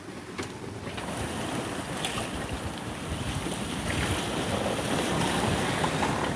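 Wind rushing over the microphone and breaking waves washing past the hull of a small IF-boat (International Folkboat) sailing in a rough sea: a steady, dense rush that grows louder about a second in.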